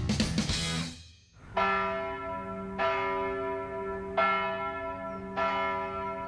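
The theme music with drums cuts off about a second in. Then a church bell tolls four times, about a second and a quarter apart, each stroke ringing on into the next.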